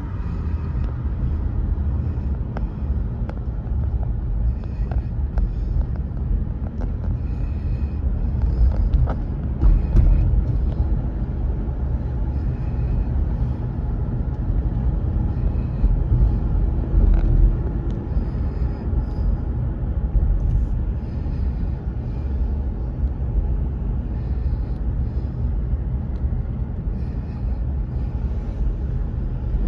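Car cabin noise while driving: a steady low rumble of engine and tyres on the road, with a few faint clicks.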